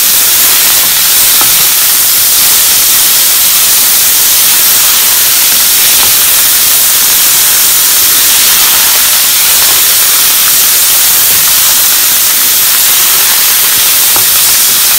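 Frozen diced onions sizzling in very hot coconut oil in a non-stick frying pan: a loud, steady hiss of frying.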